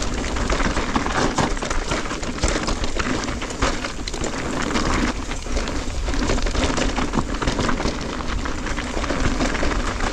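Electric mountain bike riding down a loose dirt and stone trail: tyres crunching over the loose ground, with a constant rattle of many small clicks and knocks.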